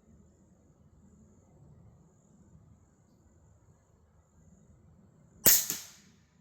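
AEA Challenger Pro .25 PCP air rifle firing a single shot about five and a half seconds in, a sharp crack followed a quarter second later by a second, softer crack. Crickets chirp faintly and steadily throughout.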